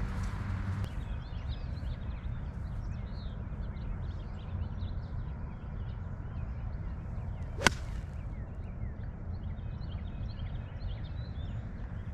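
A single sharp crack of a golf club striking the ball, about two-thirds of the way in, with birds chirping faintly around it.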